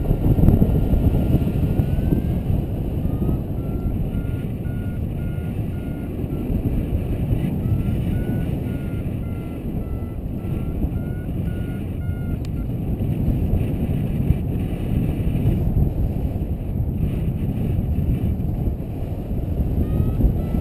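Wind rushing over the microphone in flight under a paraglider, with a variometer beeping in quick runs of short tones from about three seconds in until about twelve, and briefly again near the end; the pitch of the beeps wavers up and down as the vario signals the glider climbing in lift.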